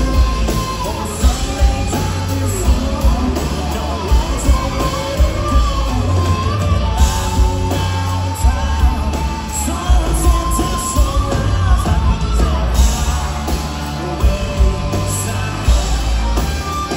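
Country-rock band playing live: lead vocals over electric guitars, bass and a steady drum beat, heard from within the audience in a concert hall.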